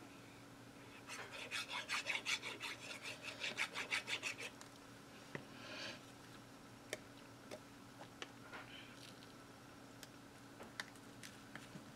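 Quick back-and-forth rubbing on card stock, about seven strokes a second for some three seconds, as glue is worked onto the back of a small die-cut paper piece. A brief softer scrape and a few light taps follow as the piece is laid down and pressed onto the journal page.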